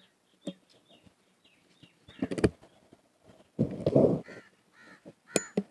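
A 12 bore shotgun being loaded: short clicks and clacks as a cartridge goes into the breech and the action is closed. A crow caws during the handling.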